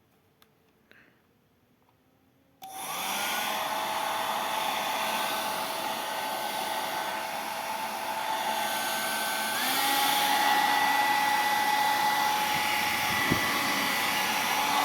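Revlon RVDR5305E2 hair dryer switched on a few seconds in. It spins up within a second to a steady whir with a whine. About ten seconds in it steps up to a higher-pitched, louder setting, and a single click follows near the end.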